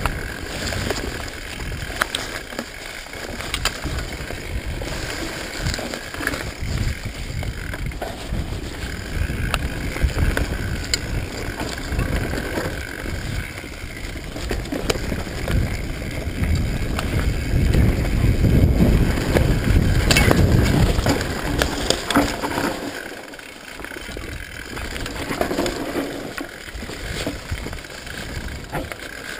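Mountain bike riding fast down a rough dirt singletrack: a constant rattle and clatter of the bike over rocks and roots, with a rushing rumble that is loudest about eighteen to twenty-one seconds in.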